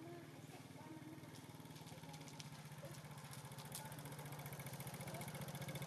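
An engine running steadily with a fast pulsing beat, growing louder.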